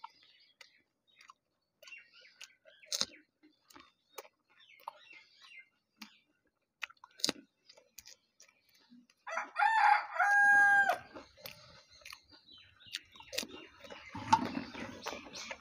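A rooster crows once, loudly, about ten seconds in: a rough opening and then a held note that breaks off. Around it are scattered sharp clicks and crunches of crisp fuchka (panipuri) shells being cracked and chewed.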